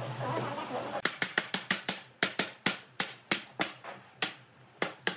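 A round hardwood mallet tapping rapidly on a wooden panel, tapping the interlocking boards of a toothed joint together. The sharp knocks start about a second in at roughly four a second and space out near the end.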